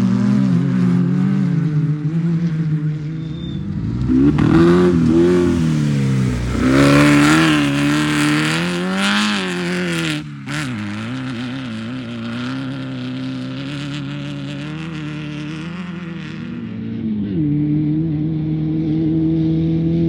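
Off-road race vehicle engines running and revving as they pass. The pitch wavers rapidly up and down with the throttle for several seconds, dips sharply for a moment about halfway through, then settles into a steady note that rises near the end.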